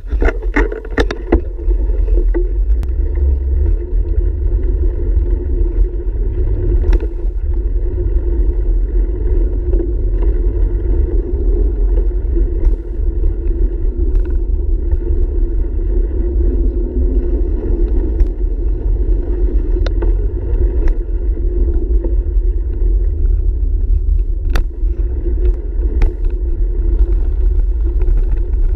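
Wind rumble and riding noise on a handlebar-mounted action camera as a bicycle rolls along a path, steady throughout, with scattered sharp clicks and rattles from the bike.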